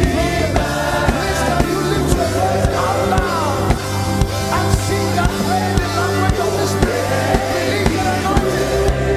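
Live gospel worship music: a voice singing a sliding melody over a band, with regular drum beats and held low bass notes and chords.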